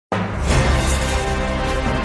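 Background music starting abruptly, with a heavy bass line.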